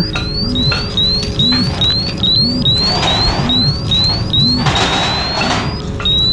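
An electronic alarm chirping: short rising tones repeated about two and a half times a second, then two longer, slower rising tones near the end.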